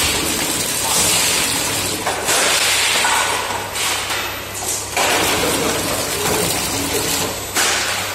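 Automatic cup flow-wrapping packing machine running: a steady low hum under a loud rushing noise that jumps up and drops off abruptly every second or two.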